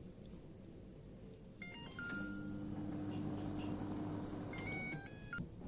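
LG microwave oven: a short electronic beep tune about two seconds in, then the oven runs with a steady low hum for about three seconds. Another short beep tune comes as it stops near the end, the end-of-cooking signal.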